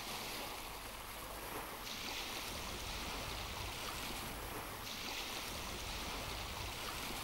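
Steady rushing background noise with no speech; the hiss brightens for stretches and a low rumble joins about two and a half seconds in.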